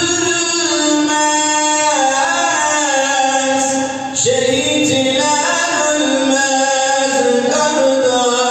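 A solo male voice sings a Turkish Islamic devotional hymn, unaccompanied, into a handheld microphone. The notes are long and held, with gliding ornaments, and there is a short breath pause about four seconds in.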